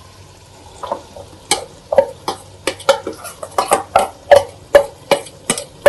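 A steel bowl clinking and scraping against a metal cooking pot as a thick paste is emptied out of it. The short, irregular metal clinks start about a second in, coming two to four a second.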